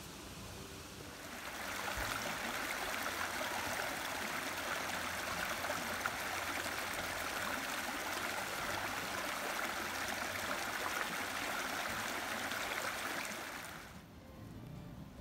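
Small woodland stream rushing over low rock ledges: a steady water noise that comes in about a second and a half in and cuts off near the end.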